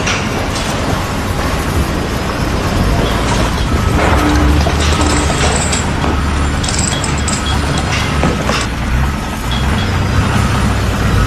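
Construction machinery running with a steady low rumble and scattered metallic clanks, with music mixed in.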